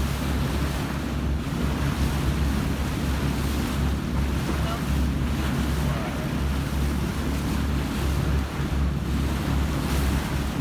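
Boat under way at sea: a steady low rumble, with wind buffeting the microphone and water rushing past the hull.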